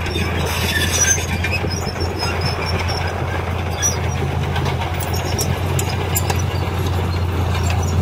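Dump truck's diesel engine running steadily with the tipper bed raised, as its load of soil slides out onto the pile, with scattered light clatter.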